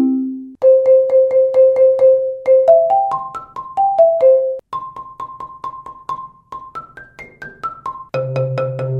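Marimba struck with Marimba One Wave Wrap yarn mallets as a sound test: a single note repeated several times, then a short run up and down the bars, then a higher note repeated and another run. Near the end a sustained low roll sets in.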